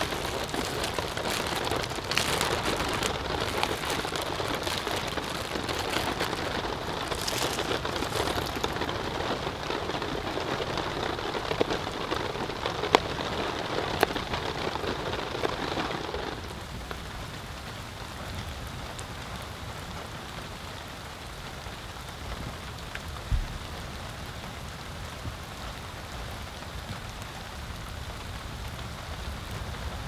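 Steady rain falling, heavier for the first half and then softer. A few sharp taps in the middle are a kitchen knife on a plastic cutting board.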